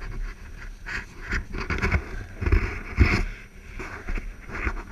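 Snow being dug out by gloved hands around a stuck snowmobile: crunching and scraping of packed snow mixed with hard breathing, in irregular bursts about every half second, with a few dull knocks about halfway through.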